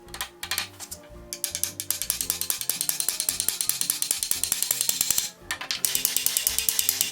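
Rapid, even mechanical clicking, about ten clicks a second, in two runs with a brief break a little after five seconds, over background music.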